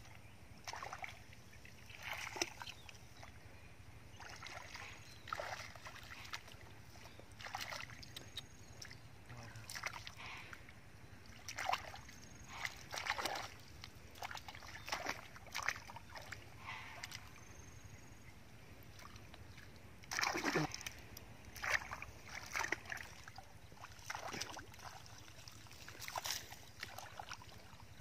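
Hands splashing and sloshing through shallow muddy water, in short irregular bursts, the biggest splashes about two-thirds of the way in.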